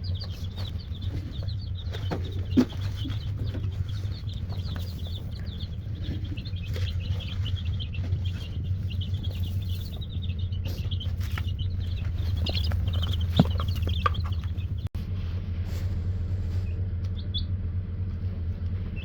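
A box of young chicks peeping constantly in many short, high chirps, over a steady low hum. There are two sharp knocks, one a few seconds in and one past the middle. The peeping thins out near the end.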